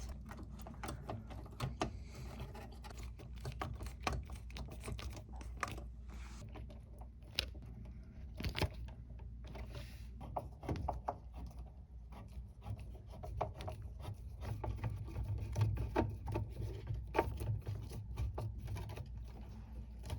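Small irregular clicks and scrapes of hand work on a new HVAC contactor's wire terminals, over a steady low hum.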